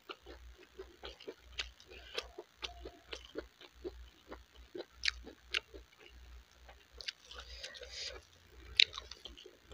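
Close-up mouth sounds of eating rice and meat curry by hand: wet chewing and lip smacks, with many irregular small clicks. The sharpest click comes near the end.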